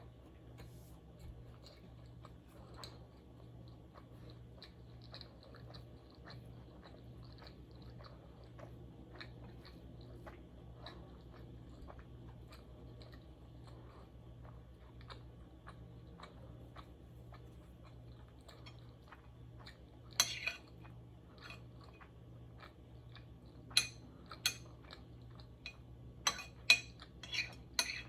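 Close-miked chewing during a mukbang meal: a steady run of soft, quick mouth clicks over a low hum. About two-thirds of the way in come several sharp, louder clicks and taps.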